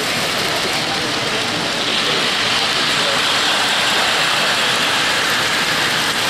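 O-gauge model trains running on three-rail track: a steady rolling noise of wheels on rails that grows louder about two seconds in as a train passes close.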